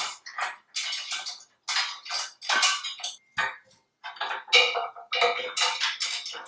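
Steel bolts, lock washers and flat washers clinking and rattling in irregular bursts as the bumper's mounting bolts are handled and started by hand into the frame.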